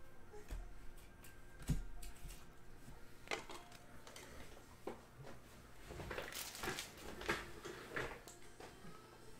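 Trading cards and clear plastic card sleeves being handled and set down on a table: a thump about two seconds in, then a run of short rustles and plastic clicks.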